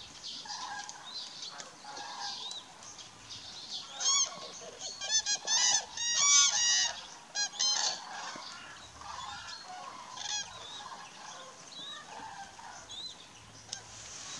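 A flock of common cranes calling: scattered softer calls throughout, with a run of loud calls in quick succession from about four to eight seconds in.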